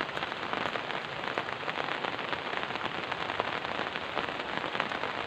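Steady rain falling, an even hiss dotted with many small sharp ticks of drops striking close by.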